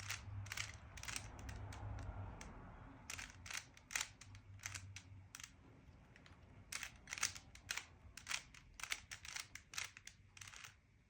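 Plastic Rubik's cube being turned by hand: quick, irregular clicking as the layers twist, in runs with short pauses between them.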